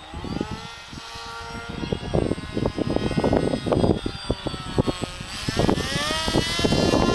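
Radio-controlled delta-wing model airplane's motor and propeller whining as it flies past. The whine drops in pitch near the start and climbs again after about five seconds, with wind rumbling on the microphone underneath.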